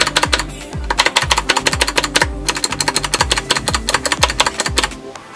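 PBT spacebar keycap on a Gateron Blue clicky switch, pressed repeatedly in quick succession: a dense run of sharp clicks, with short pauses about half a second in and a little after two seconds, stopping shortly before the end.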